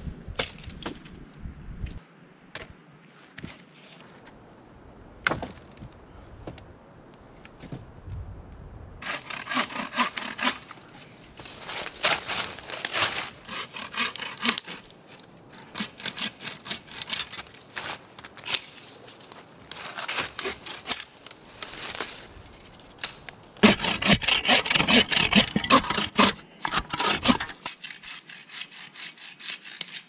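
A saw cutting through evergreen branches in runs of quick back-and-forth strokes, with short pauses between cuts; the last run, near the end, is the loudest. Before the sawing starts there are a few scattered snaps and knocks.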